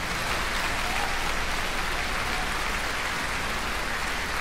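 Steady applause from a crowd, an even wash of clapping with no single claps standing out.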